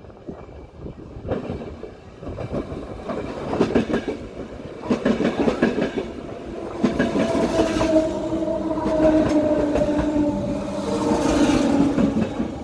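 ÖBB class 4020 electric multiple unit running into the station along the platform, its wheels clattering over the rail joints and growing louder as it nears. From about halfway through, a wavering hum joins the clatter.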